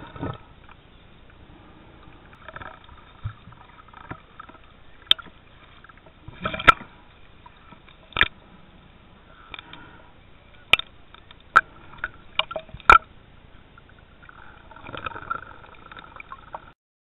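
Muffled water sloshing and gurgling around a camera held underwater, broken by several sharp clicks and knocks scattered through the middle.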